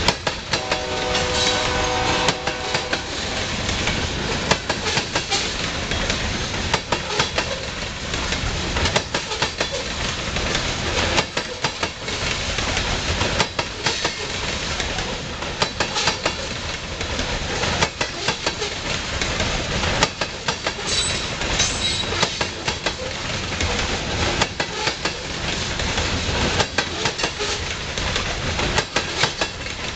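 Loaded covered hopper cars of a freight train rolling past close by, wheels clacking over the rail joints with a steady rumble. A train horn sounds at the start and fades out within the first couple of seconds.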